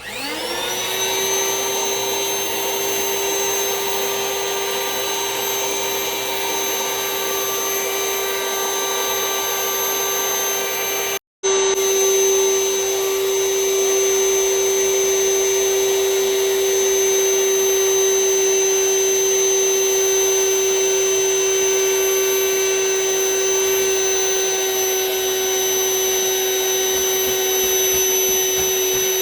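Vacuum cleaner switching on, spinning up within the first second, then running with a steady whine while it draws the air out of a storage bag packed with plushies. The sound cuts out completely for an instant a little before the middle.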